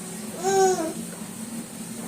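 A short, high-pitched voiced vocal sound, once, about half a second in, its pitch rising and then falling.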